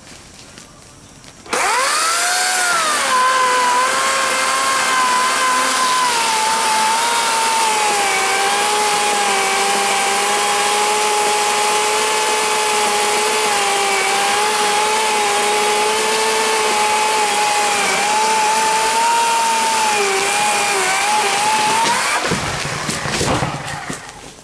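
Gas chainsaw revving up sharply about a second and a half in, then running steadily at high throttle, its pitch pulled down and held under load as it cuts through a heavy log. Near the end the engine note drops away amid a crackle of breaking wood and branches as the cut limb comes down.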